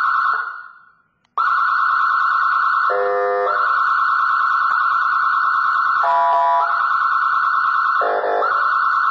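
Federal Signal 200-watt electronic siren sounding a steady high tone with a fast warble. It fades out just after the start, comes back after about a second of silence, and is broken three times by short, lower, buzzy tones.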